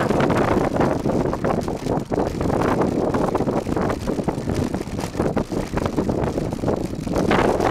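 Wind buffeting the microphone of a camera on a mountain bike riding fast down a rough dirt track, mixed with the continual rattling and knocking of the bike over the bumpy ground.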